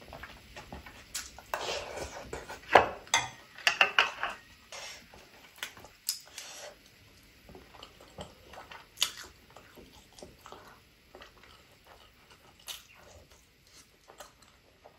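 A person eating close to the microphone: mouth sounds and chewing on noodles from a metal spoon, with the spoon clinking against the bowl. The sounds are dense and loudest in the first four seconds or so, then thin out to scattered clicks of chewing.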